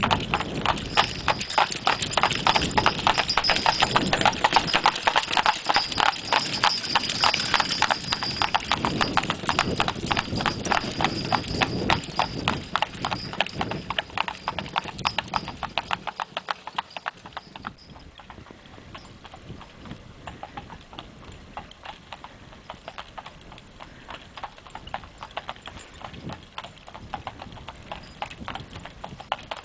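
Hooves of a team of horses clip-clopping in a dense, steady clatter. It drops to a quieter level a little past halfway.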